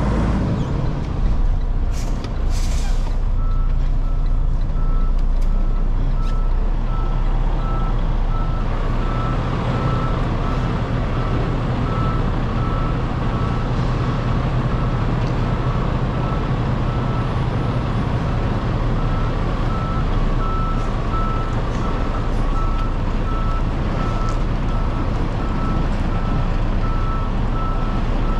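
Semi truck's diesel engine running slowly while the rig backs up, with a reverse alarm beeping steadily from about three seconds in. A brief hiss of air comes just before the beeping starts.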